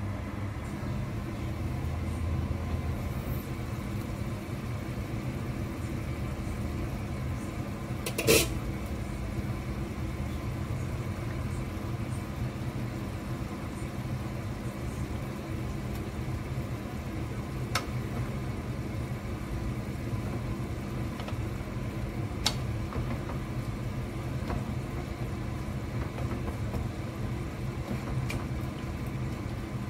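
A steady low hum runs throughout. About eight seconds in there is one sharp clank, most likely the glass lid coming off the frying pan of braising pork. A few lighter clicks follow later, as a wooden spatula taps the pan while stirring.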